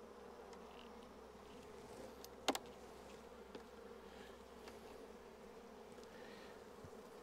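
Faint, steady hum of honeybees from an open hive, with a single sharp click about two and a half seconds in.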